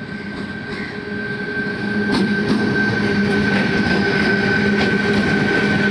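A WAG-12B electric locomotive passing close at speed with a loaded container train. It gives a steady high whine and a low hum over a rumble that grows louder for the first two seconds, with a few sharp clicks from the wheels on the rails.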